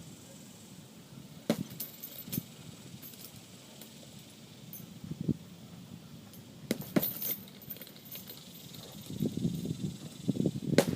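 Gloved punches landing on a heavy punching bag: several sharp hits spread out, the loudest a hard blow about seven seconds in, with light metallic clinking.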